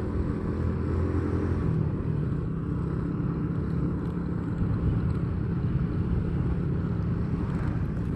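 Road vehicle engine running on the move, its note stepping up slightly about two seconds in, over a steady rush of road noise.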